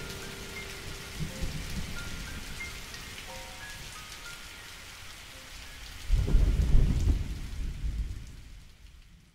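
Steady rain with a few faint held musical notes over it in the first half. About six seconds in a loud, low rumble of thunder rolls in, and then the rain and thunder fade out.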